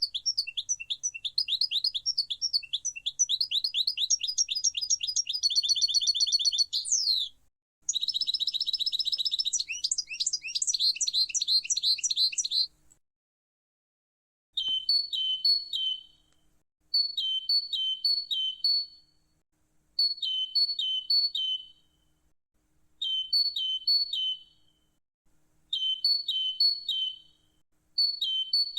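European goldfinch singing a long, rapid twittering song for about the first thirteen seconds. After a short pause, a great tit sings its repeated two-note 'teacher-teacher' phrase in short bursts about every three seconds.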